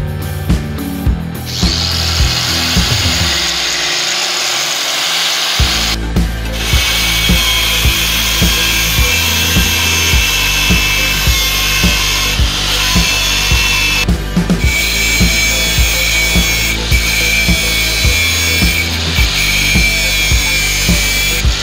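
Electric angle grinder grinding a steel axe head, a steady high grinding hiss that starts about a second and a half in and breaks off briefly twice. Background music with a steady beat plays under it.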